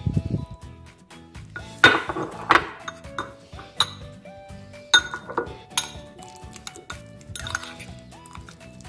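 Metal fork clinking and scraping against a ceramic bowl while mashing banana, a run of sharp clinks with the loudest about two and five seconds in.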